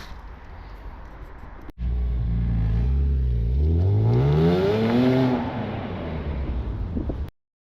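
BMW E46 M3's straight-six engine revving, its pitch climbing for about two seconds and then easing back, after a quieter low hum; the sound cuts off abruptly near the end.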